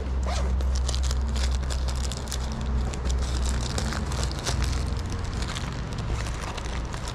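Gloved hands handling a packed bag and its strapped-on plastic water bottle on a bicycle's rear rack: a dense run of rustles, crackles and clicks over a steady low rumble.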